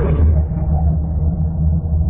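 Mega Godzilla monster sound effect: a deep, steady rumble, with the tail of a higher roar fading out in the first half second.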